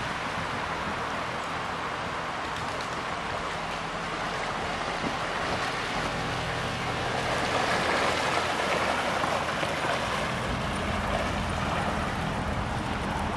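Canal narrow boat passing close by: its engine running with a steady low hum while its bow wave and wash churn and splash along the bank. The water noise swells after the middle as the stern goes by.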